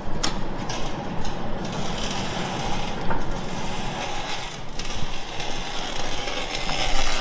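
Wire-feed (MIG) welder arc crackling and sizzling steadily, cutting off abruptly at the end.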